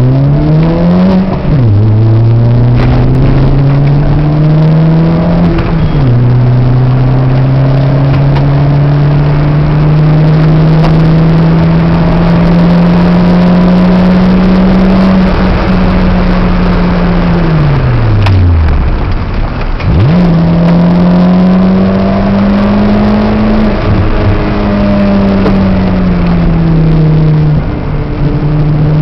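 Peugeot 206's engine heard from inside the cabin under hard acceleration, its note climbing through two quick upshifts and then rising slowly over a long stretch at speed. Past the middle the note falls away, then climbs again with another upshift near the end.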